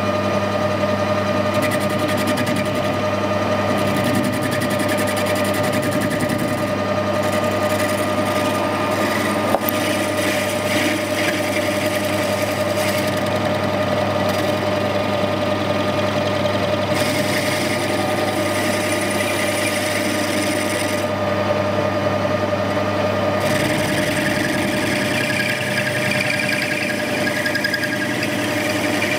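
Metal lathe running, its motor and gears giving a steady hum and whine as it turns a steam wagon valve built up with 309 stainless weld. A higher hiss comes and goes over the top.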